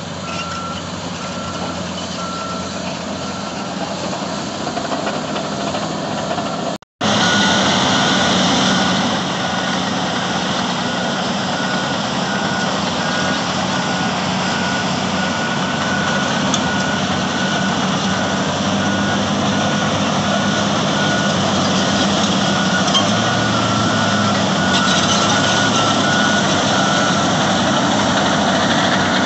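Heavy diesel engines of Caterpillar D10N bulldozers and 651E wheel tractor-scrapers running under load during push-loading, with a backup alarm beeping steadily over them. The sound cuts out briefly about seven seconds in and comes back louder.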